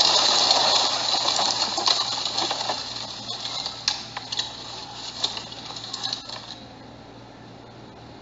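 Aftermath of a car collision heard from inside the car: a dense, loud clatter of breaking glass and debris that fades over about three seconds, then scattered light clinks and tinkles of glass fragments. It cuts off suddenly about six and a half seconds in.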